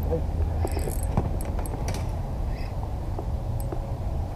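Spinning reel being cranked to bring in a heavy hooked walleye: a soft gear whir with scattered light clicks, over a low steady rumble.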